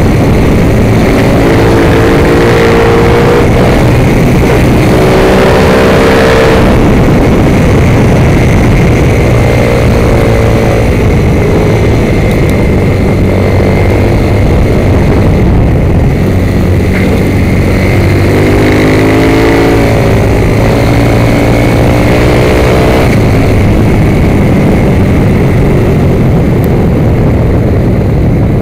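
Motorcycle engine running hard, its pitch climbing and dropping back several times as the rider accelerates and slows through corners, under heavy wind rush on the bike-mounted microphone.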